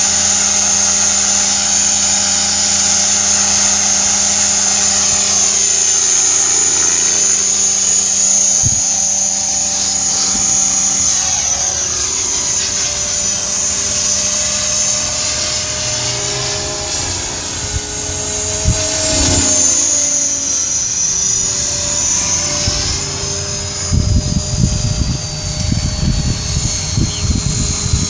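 Align T-Rex 500 Pro DFC electric radio-controlled helicopter in flight: a steady high-pitched whine from its motor and spinning rotor, the pitch rising and falling as it manoeuvres. Wind buffets the microphone in the last few seconds.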